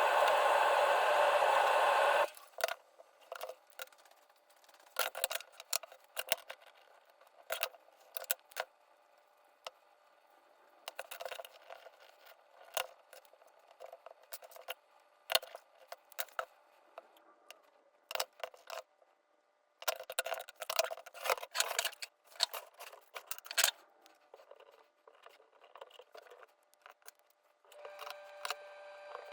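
A loud steady whirring noise that cuts off suddenly about two seconds in, then scattered small clicks, taps and rustles from hands handling small parts and materials.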